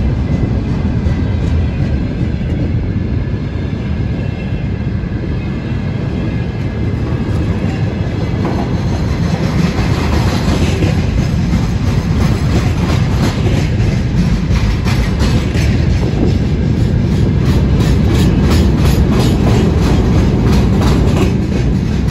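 Freight wagons rolling past close by: a steady rumble of steel wheels on the rails, with rapid clickety-clack of wheels over rail joints becoming more distinct about eight seconds in.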